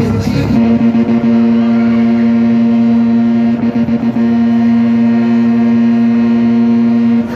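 A single long steady tone with overtones, held at one pitch for about seven seconds. It sets in about half a second in and cuts off abruptly, standing in for the fairground ride's music.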